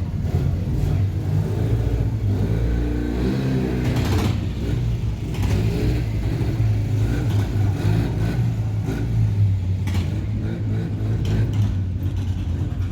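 Motorcycle engine running, with a brief rise and fall in revs about two to four seconds in.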